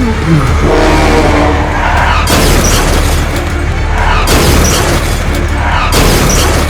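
Loud background music with a steady heavy bass, with three bursts of crash-like noise about two seconds apart, the first about two seconds in.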